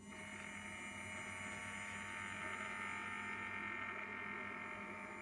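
3DR Solo camera gimbal's motors buzzing with a steady, many-toned electrical whine that starts suddenly as the gimbal tilts the camera downward. This is the abnormal gimbal noise the owner is reporting, a fault that also shows as vibration when the gimbal sits at 0 degrees.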